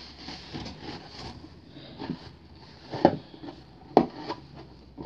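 Close handling noise: rubbing and rustling, with two sharp knocks about three and four seconds in.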